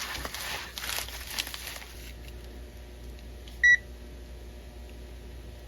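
Rustling and handling noise for about two seconds, then a single short electronic beep about halfway through.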